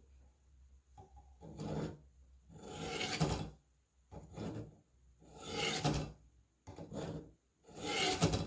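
Buck 119 hunting knife blade drawn through a Warthog knife sharpener's coarsest abrasive blades at its widest angle setting: about six scraping strokes of steel on abrasive, each lasting under a second, with short pauses between. These are the first passes that set a new edge angle on a blade whose old angle is unknown.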